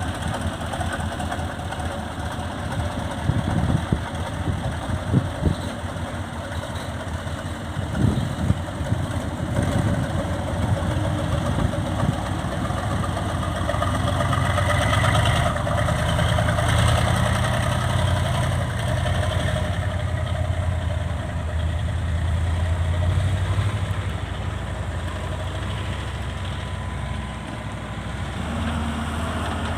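Heavy diesel engine running with a fast, even firing rhythm, working harder and louder through the middle stretch. A few sharp knocks sound in the first eight seconds or so.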